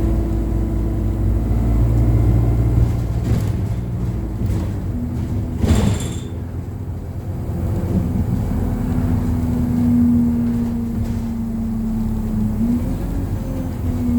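ADL Enviro200 single-deck bus on the move, heard from inside the cabin: a deep engine and drivetrain drone with a steady whine that sets in about five seconds in. There is a brief sharp noise just before the six-second mark.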